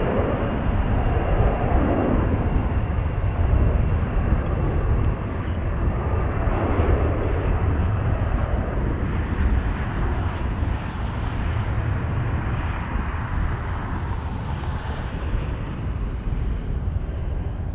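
Jet airliner engines running at the airport, a steady rumble and roar with a faint whine in the first few seconds, mixed with wind buffeting the microphone.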